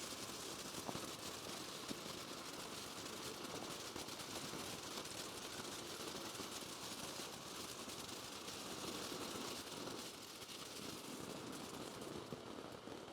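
Two ground firework fountains burning together: a steady spraying hiss peppered with fast crackling.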